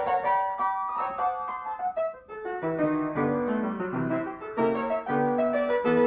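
Solo piano music, a quick run of struck notes in a light, lively silent-film style.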